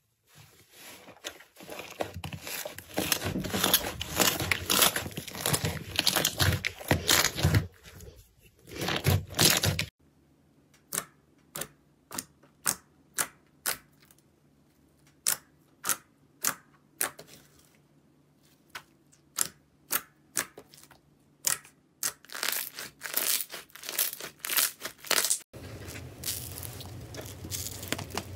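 Foamy green slime scraped and pulled from its tub, giving a dense crackling, tearing sound for about ten seconds. Then glossy pink slime is pressed and stretched, with a string of separate sharp pops broken by short pauses. Near the end, a softer rustling as foam sponge cubes are handled.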